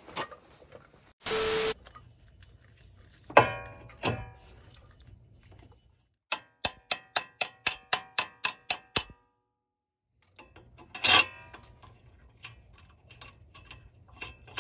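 Ratchet wrench clicking in an even run, about four clicks a second, as it turns a bolt on an upper control arm, with ringing metal clanks of tools and parts before and after. A short hiss comes near the start.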